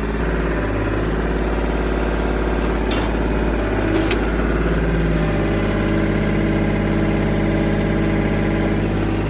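Tractor engine running steadily, its pitch pattern shifting slightly about five seconds in, with a couple of brief clicks a few seconds in.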